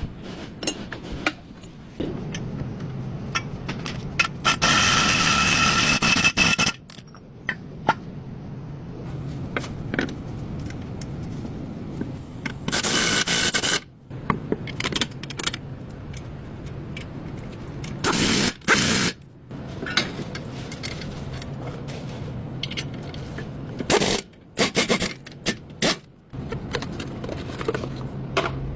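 Tool work on car brake parts: scraping, clicks and knocks of metal, with several loud bursts lasting one to two seconds, the longest about five seconds in.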